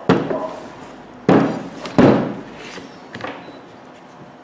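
Sharp knocks and clacks of the angle grinder's parts being handled during reassembly: three loud ones, near the start, at about one and a quarter seconds and at about two seconds, then a few lighter taps.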